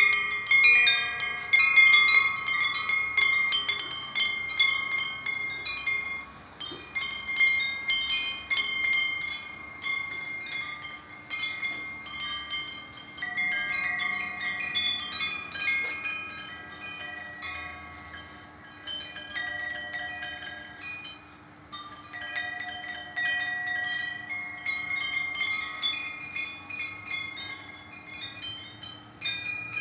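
Aluminium tube wind chime with an owl-shaped top, its tubes struck irregularly by the clapper and ringing on in overlapping tinkling tones.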